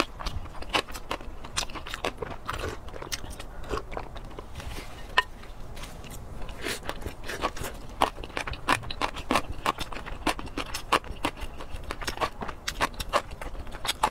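Close-miked chewing with many sharp, irregular wet mouth clicks. A wooden spoon stirs, scrapes and knocks in a glass bowl of food.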